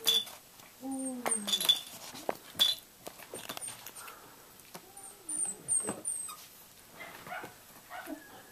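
Miniature schnauzer puppies making short, whiny calls while mouthing and chewing plush toys, with a few sharp clicks and tiny high squeaks in between.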